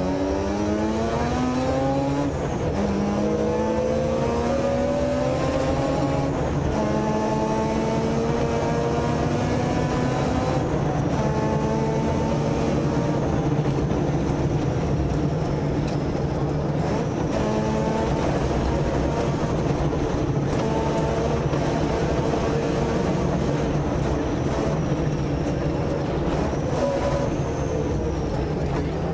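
Mazda RX-7's rotary engine heard from inside the cabin, pulling hard through the gears: the pitch climbs and drops back at each upshift for the first ten seconds or so, then holds high revs with shorter rises and dips as the driver lifts and accelerates.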